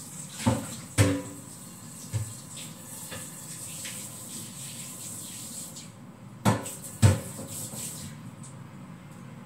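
Kitchen tap running into a sink while cookware is washed, with several knocks and clatters of pans in the basin; the water stops about six seconds in, followed by two loud knocks.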